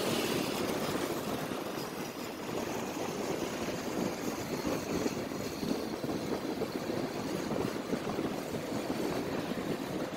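Wind rushing and buffeting over a phone microphone on a moving motorcycle, with road and motor noise mixed in, as a steady fluttering rush.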